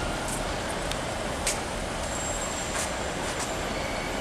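Steady low rumble of diesel passenger trains idling at the station platforms, with a couple of short high hisses about a second and a half and nearly three seconds in.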